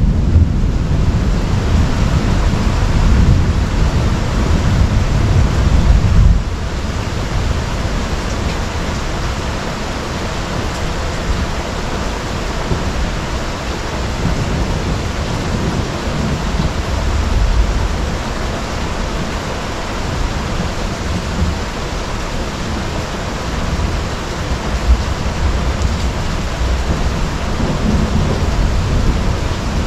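Heavy thunderstorm rain pouring steadily, with a deep rumble of thunder that is loudest over the first six seconds, drops away about six seconds in, and swells faintly again later.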